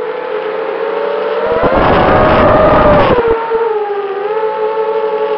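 FPV racing quadcopter's brushless motors and propellers whining steadily. About a second and a half in, a throttle burst raises the pitch and adds a rushing noise. The pitch then drops back and settles lower near the end.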